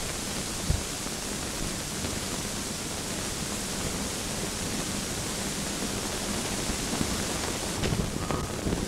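Steady hiss of an old film soundtrack, with a faint low hum underneath and a single click about a second in. A few short sounds begin near the end.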